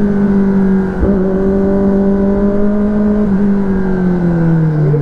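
Kawasaki ZX-10R's inline-four engine running at a steady note under throttle, briefly dipping about a second in. From about three seconds in the engine note falls steadily as the bike slows.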